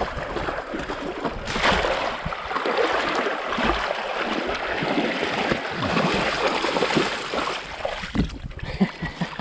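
Continuous splashing and sloshing of a person wading knee-deep through a shallow, flowing river while pushing a mountain bike, legs and front wheel churning the water. It eases somewhat near the end.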